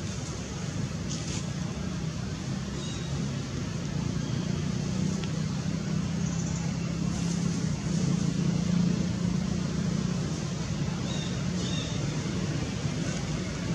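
Steady low hum of a motor vehicle's engine over a constant background rush, swelling a little around the middle, with a few faint high chirps.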